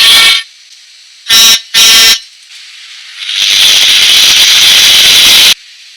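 Children's sound book's small speaker playing vehicle sounds: a pitched tone cutting off just after the start, two short horn honks, then a long hiss that stops suddenly.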